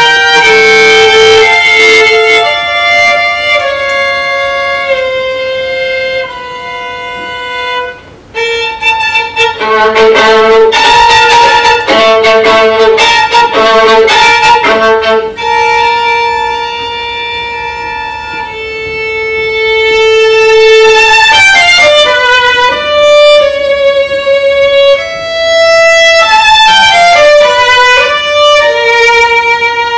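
Solo violin playing a slow melody of long held notes. It breaks off briefly about eight seconds in, moves to short, quick bow strokes in the middle, and plays quick runs of notes near the end.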